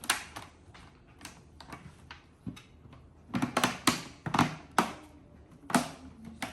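Sharp clicks and taps of hard plastic and small metal parts being handled during work on a laptop's internals. A quick cluster comes about halfway through and one more near the end.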